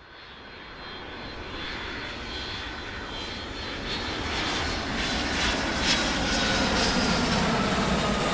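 Jet airliner flying in and passing low overhead: its engine noise grows steadily louder, with a thin fan whine that slides slowly down in pitch as it goes by.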